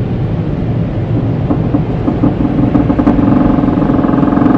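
Automatic car wash machinery heard from inside the car: a low, even rumble, then about halfway in a strong steady mechanical drone comes in and grows louder.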